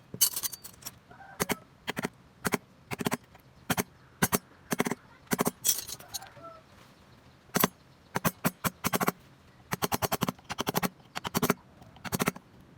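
Carving chisel driven into wood by quick mallet taps, in rapid runs of sharp knocks with short pauses between.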